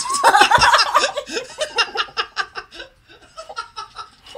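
People laughing hard: loud laughter breaks out all at once, then trails off over a few seconds into shorter, fainter chuckles.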